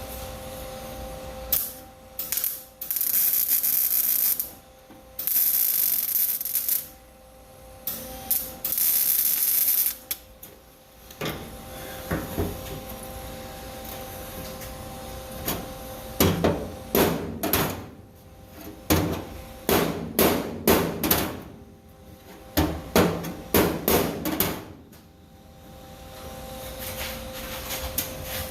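Three MIG welding bursts of about two seconds each, stitch-welding a steel floor pan into a Ford F100. These are followed about halfway through by a long run of quick hammer blows on the sheet-metal floor.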